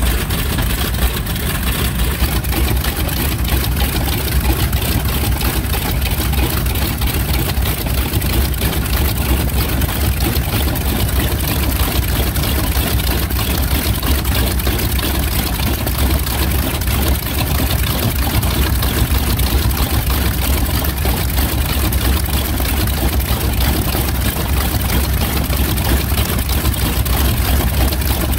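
Wright R-2600 fourteen-cylinder radial engines of a North American PBJ-1J (B-25J) Mitchell idling steadily with propellers turning, a deep, even running sound.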